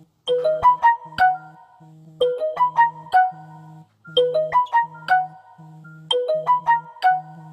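Instrumental music with no vocals: a short keyboard phrase of quick rising piano-like notes, repeated about every two seconds over a steady pulsing low note.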